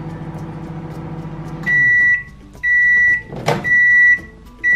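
Breville microwave oven running with a steady low hum that stops about a second and a half in as its timer runs out, followed by its end-of-cycle signal: loud, high, evenly pitched beeps about half a second long, three in a row with a fourth starting at the end. A sharp click from the door being opened falls between the second and third beep.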